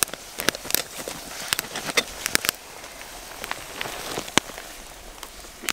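Wood campfire crackling, with sharp irregular pops that come thick for the first couple of seconds and then thin out.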